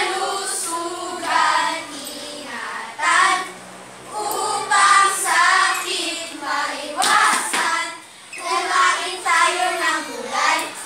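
A group of children singing together in short phrases, with brief breaks between phrases.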